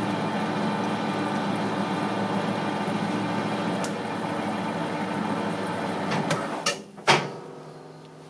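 Metal lathe running under power during a single-point threading pass on a 1.75 mm pitch thread. About six and a half seconds in come a few sharp clicks and then a loud clunk, after which the lathe runs down.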